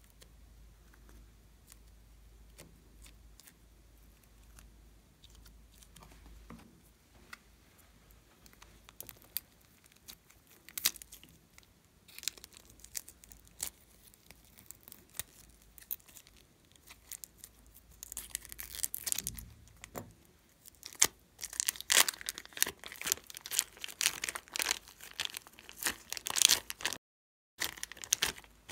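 A clear plastic piping bag crinkling and crackling as it is handled and squeezed to push slime out, dense and loud over the last third, with a brief dropout near the end. It is preceded by faint, scattered clicks as slime is worked by hand.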